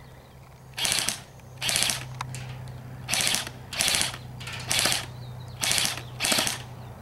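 An electric airsoft rifle firing short full-auto bursts: seven quick strings of rapid clicking shots in about six seconds, some in close pairs.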